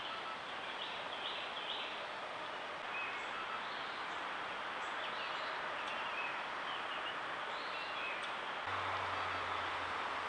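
Steady hiss of a trail camera's microphone in woodland, with faint brief bird chirps scattered through. A low steady hum sets in near the end.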